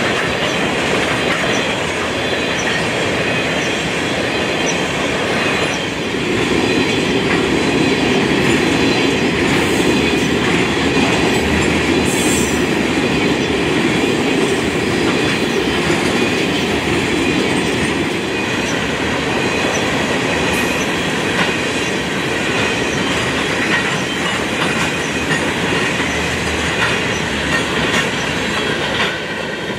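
Loaded tank cars of a freight train rolling past: steady noise of steel wheels on rail, with a faint high wheel squeal. It quiets near the end as the last car goes by.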